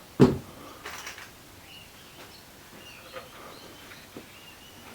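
A single sharp knock about a quarter of a second in, then quiet with a few faint, short bird chirps in the background.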